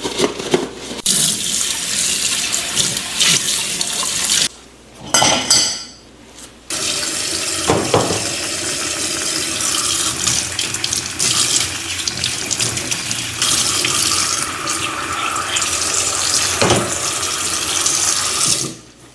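Water from a kitchen tap running into a sink. It is shut off for about two seconds after four seconds in, with a few light knocks in the gap, then turned back on and shut off again near the end.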